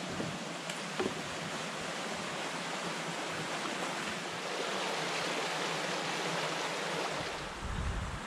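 A stream flowing, a steady rushing hiss, with a couple of light clicks near the start and a low rumble near the end.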